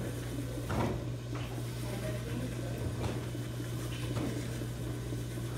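Electric pottery wheel running with a steady motor hum while wet clay is pressed and slides under the hands during centering, with a few short rubbing sounds about a second in and again around three and four seconds.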